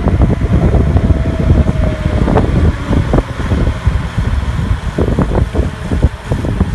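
Heavy wind buffeting on the microphone of a moving bike, a loud uneven rumble with crackles, over vehicle and road noise.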